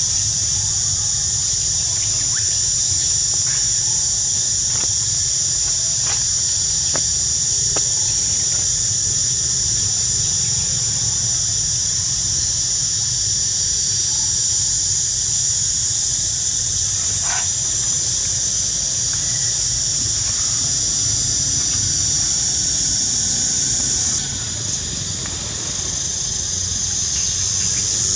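A steady, high-pitched drone of an insect chorus, which drops away briefly about three-quarters of the way through and comes back near the end. A low rumble runs underneath, with a few faint ticks.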